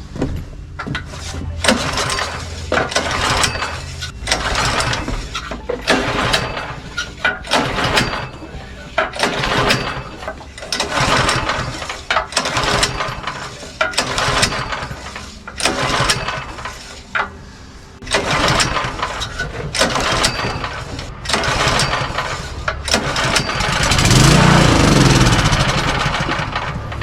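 Craftsman tiller's small four-stroke engine being pull-started over and over with the recoil starter, then firing for a few seconds near the end on starting fluid and dying. Running on starting fluid and then dying shows the engine has compression and spark: a fuel-related fault in the carburetor.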